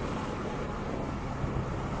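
Motorcycle riding in city traffic: a steady low engine hum under a constant rush of wind and road noise.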